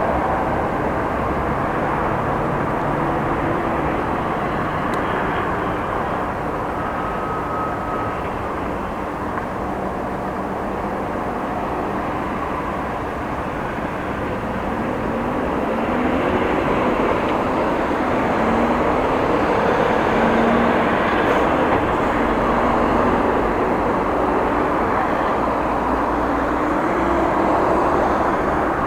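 Road traffic passing through a junction: car engines and tyre noise going by, with engine pitch rising as vehicles pull away.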